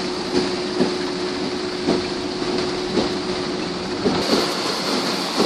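Floodwater rushing across the ground after a downpour: a steady, loud rushing noise with a constant hum under it and soft knocks about once a second.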